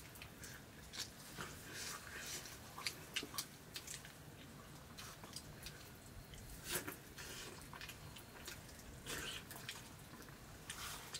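People eating rice by hand from steel plates: faint chewing and mouth sounds with a scatter of small clicks and scrapes from fingers and food against the plates.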